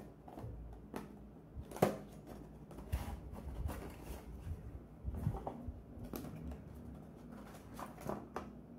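Cardboard smartwatch boxes and their packaging inserts being handled on a table: light scattered clicks, taps and rustles, the sharpest about two seconds in.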